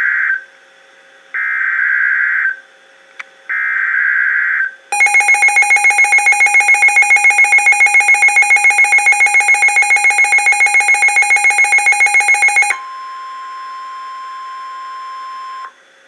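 NOAA Weather Radio alert coming through a Midland weather radio: short screeching SAME digital header bursts, each about a second long, with the last ending about five seconds in. The radio's own alarm then beeps rapidly, about five pulses a second, for nearly eight seconds. It is followed by the steady single-pitched weather-radio warning tone for about three seconds, signalling a severe thunderstorm warning.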